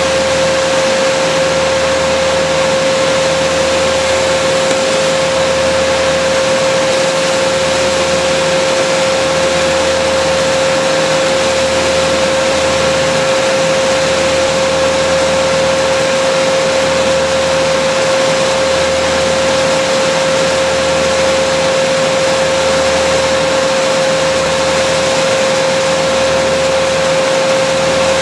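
A small engine-driven machine running steadily at constant high speed, with a strong steady whine over a rushing noise.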